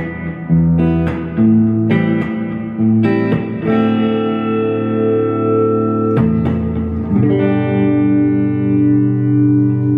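Clean electric guitar through a Fender Champion 20 combo amp on its Blackface voice, with delay and reverb added. Several chords are picked in quick succession in the first few seconds, then two more are struck and left to ring out with a slight wavering.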